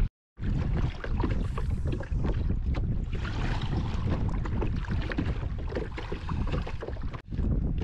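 Wind buffeting the microphone and choppy water lapping against a kayak's hull, with many scattered light ticks and knocks.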